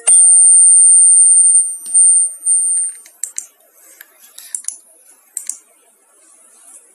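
A loud, steady, very high-pitched single tone like an alarm beep, lasting about three seconds, followed by a few faint scattered clicks.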